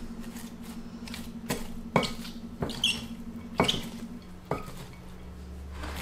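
Shredded cabbage, onion and capsicum being tossed with a large spoon in a glass bowl: a low rustle of vegetables, with about five separate knocks of the spoon against the glass.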